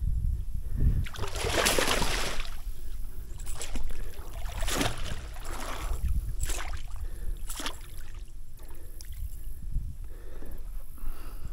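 Water splashing in several irregular surges as a hooked longnose gar thrashes at the surface beside a kayak, the longest splash about two seconds in.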